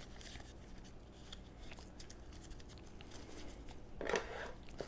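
Faint rustling and crinkling of a sandpaper strip and scissors being handled, just after the strip was cut, with a brief louder rustle about four seconds in.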